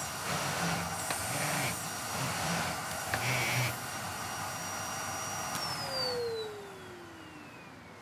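Siemens Z 7.0 allergyPlus vacuum cleaner running steadily with a whine, described as one of the quiet models. It is switched off about five and a half seconds in, and the motor winds down with a falling whine.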